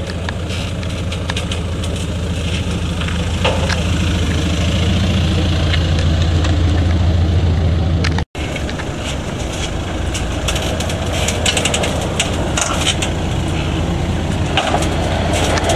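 Volkswagen Amarok pickup's engine running steadily at low revs as the truck crawls over steel ramp obstacles, with scattered clicks and knocks from the ramps. The sound cuts out briefly about eight seconds in.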